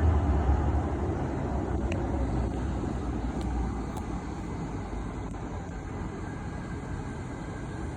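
A train's low rumble fading steadily as it moves away, with a few faint clicks.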